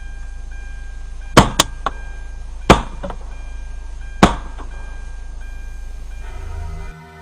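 Three 12-gauge shotgun shots, about a second and a half apart, each followed by a short echo. Background music plays underneath.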